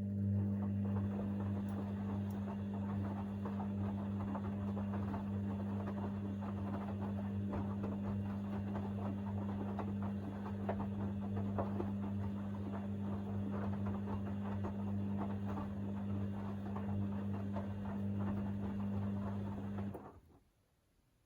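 Hoover DynamicNext washer-dryer's motor turning the drum during the main wash of a 60° cycle, with a steady low hum and the rustle of wet laundry tumbling. It stops abruptly near the end, the pause between drum turns.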